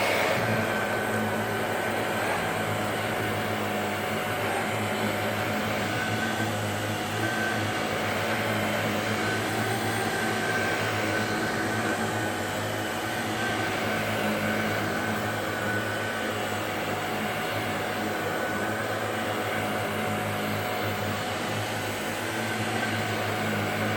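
Shark DuoClean NV801UK upright vacuum cleaner running steadily while vacuuming, a constant motor hum with a faint steady whine.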